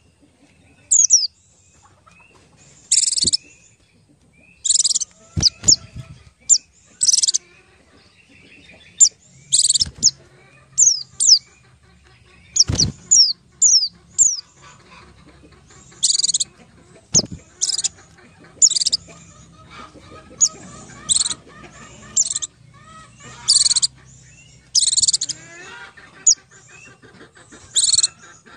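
Birds chirping: short high-pitched calls and quick downward-sweeping notes, repeated every second or so, with a few soft knocks in between.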